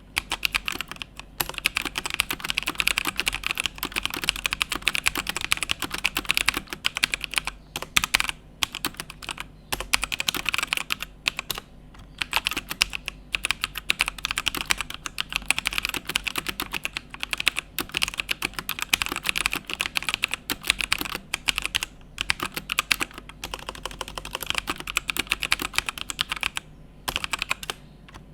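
Fast continuous typing on a Rexus Legionare MX3.1 mechanical keyboard with brown switches, a quick run of key clacks broken by a few short pauses.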